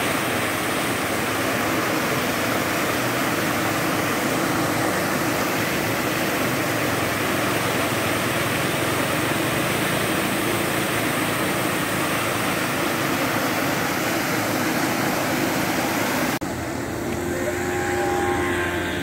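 A burst water main gushing, a tall jet of water rushing and spraying steadily as it falls back on the ground. About sixteen seconds in it drops suddenly to a quieter, more distant rush.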